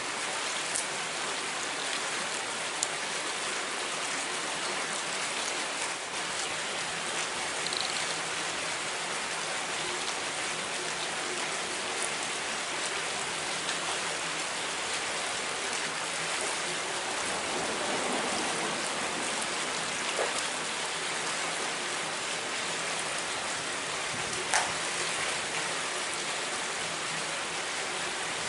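Steady, even rushing water noise, with a few faint clicks.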